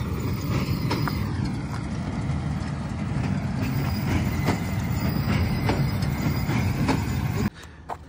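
Diesel engine of a New Holland 4x4 tractor running steadily as it pulls a working baler, with sharp knocks at irregular intervals of about a second. The sound cuts off suddenly near the end.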